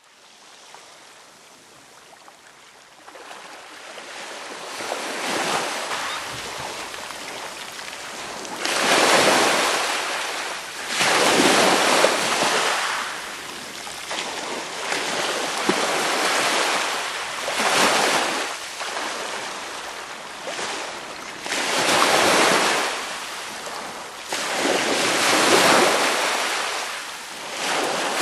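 Small sea waves washing in over sand at the water's edge. The surf swells and ebbs every few seconds, fading in from silence over the first several seconds.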